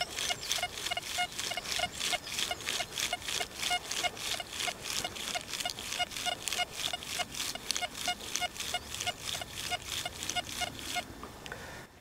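XP Deus II metal detector on its General two-tone program giving its audio response over a buried target: a rapid, even train of short beeps, about four a second, stopping about a second before the end.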